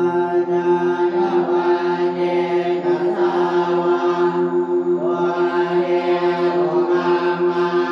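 Background music of chanting over a steady held drone, the sung notes above the drone shifting every couple of seconds.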